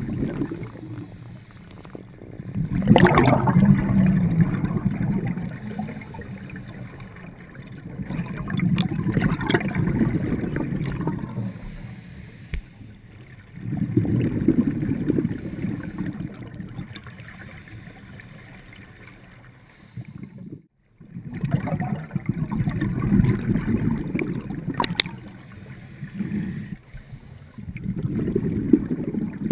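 Scuba diver's exhaled bubbles from the regulator, heard underwater: a bubbling rush lasting two to three seconds that comes back about every five to six seconds, five times, with quieter stretches between. The sound cuts out completely for a moment about two-thirds of the way through.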